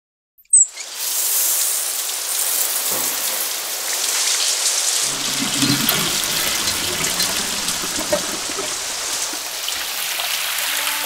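A shower valve clicks open, then a shower head sprays water in a steady hiss onto the floor and down a steel drain.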